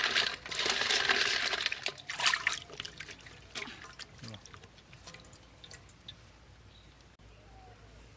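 Hands swishing cleaned crab pieces about in a basin of water: splashing and sloshing, loudest for the first two and a half seconds, then lighter scattered splashes and drips.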